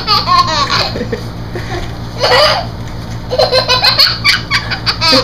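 A person laughing hard off camera, in repeated bursts of giggles and belly laughs, over a steady low hum.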